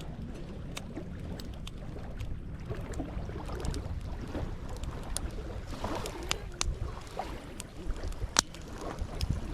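Campfire crackling with scattered sharp pops, the loudest about eight seconds in, over a low rumble of wind on the microphone.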